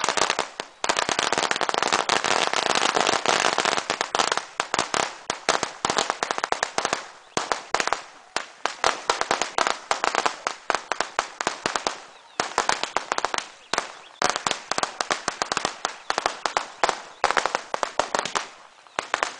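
Firecrackers going off in a long, rapid series of sharp bangs. They come almost as one crackle for the first few seconds, then thin into separate bangs with short pauses, and stop shortly before the end.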